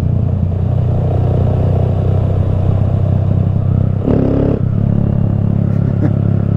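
Honda Grom's small single-cylinder engine running at a steady low road speed, with a brief change in the engine note about four seconds in.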